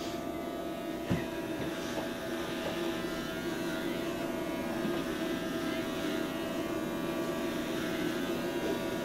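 Electric hair clippers running with a steady buzz as they are drawn over a close-cropped scalp.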